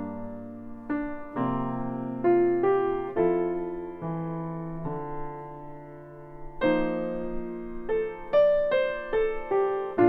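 Solo piano music: a slow, gentle melody over held chords, with notes coming more quickly from about two-thirds of the way in.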